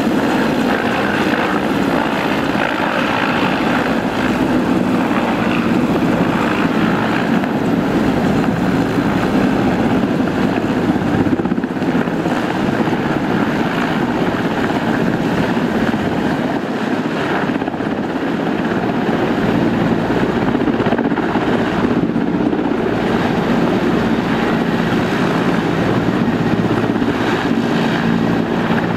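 Mi-8-family twin-turbine military helicopter flying low overhead: a loud, steady sound of main rotor and turbines, with a steady low hum joining in near the end as it comes in low toward the camera.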